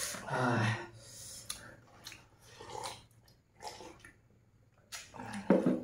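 A man's short wordless vocal sounds, low grunts or hums, at the start and near the end, with quieter eating noises from a bowl between them.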